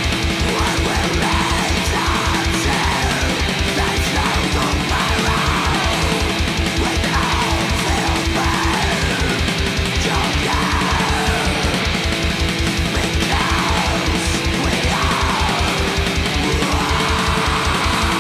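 Black metal music: distorted electric guitars over a fast, even kick-drum pulse.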